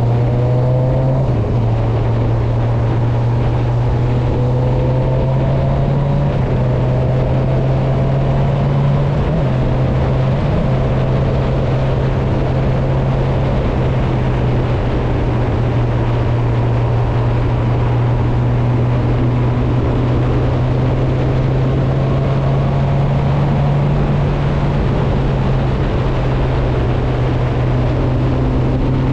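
A motorcycle engine running steadily at a low, even pitch. Fainter engines rise in pitch now and then behind it.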